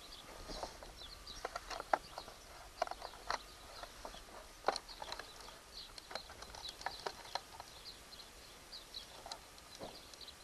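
Irregular clicks and knocks of a 12 V lithium battery and its plastic wire connectors being handled and fitted into a Razor E95 scooter's battery compartment, with small birds chirping faintly.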